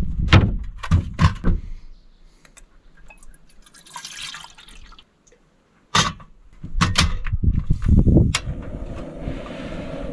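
Knocks and clatter as a portable gas camp stove and a metal kettle are set down on a wooden board, followed near the end by a steady hiss as the burner is lit.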